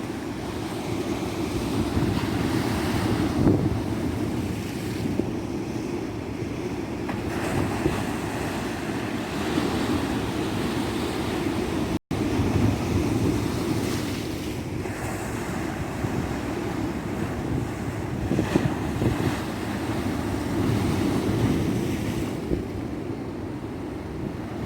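Ocean surf washing onto a beach: a continuous deep rush of waves that swells and eases every few seconds, with wind on the microphone. A split-second dropout cuts the sound about halfway through.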